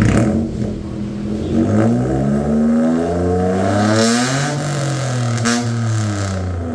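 Ayla 1.0's three-cylinder engine revved through a full aftermarket racing exhaust (racing downpipe, resonator and muffler), with a very sharp note. The pitch climbs steadily to a peak about four seconds in, rasping at the top, then falls back toward idle near the end.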